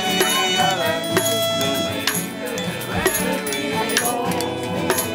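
Live folk music: a fiddle playing the melody over strummed guitars.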